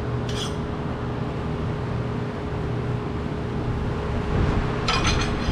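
Steady low mechanical hum of shop machinery or ventilation with a faint constant tone, broken by a short noisy clatter just after the start and a louder one near the end.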